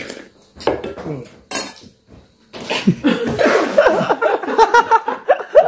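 Spoons clinking against stainless steel bowls and plates for the first couple of seconds, then loud, continuous laughing from about two and a half seconds in.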